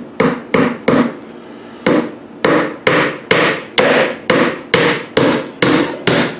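Hammer striking the wooden antenna base: about a dozen sharp, ringing blows at roughly two a second, with a short pause about a second in.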